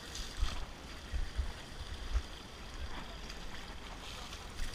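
Buckets of water thrown over an elephant, splashing a few times, with wind buffeting the microphone in low gusts.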